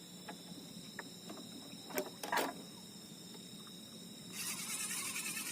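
Night insects droning steadily at several high pitches, with a few sharp knocks about two seconds in. Near the end a louder rasping, pulsing noise starts and keeps going.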